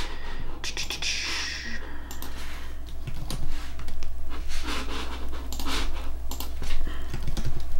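Breathing close to the microphone, with scattered sharp computer keyboard and mouse clicks over a steady low hum.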